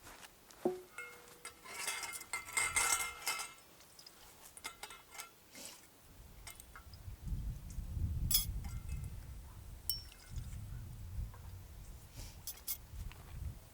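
Light clinks and knocks of small metal or glass objects being handled, some briefly ringing, followed from about seven seconds in by low rumbling with a few more sharp clicks.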